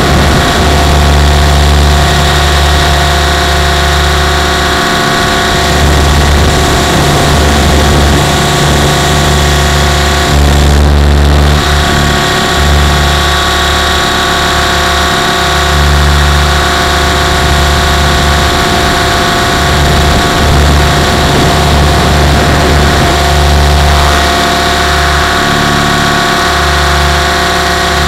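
Electric Compass 6HV RC helicopter in flight, heard from a camera on its frame: a steady motor-and-gear whine over the rotor's deep throbbing rumble, which swells and fades as the helicopter manoeuvres.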